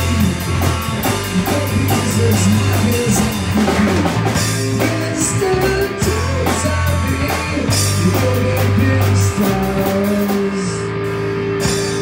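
Live rock band playing loud: electric guitar, bass guitar and drum kit, with a singer. Near the end the drumming thins out and long held notes ring on.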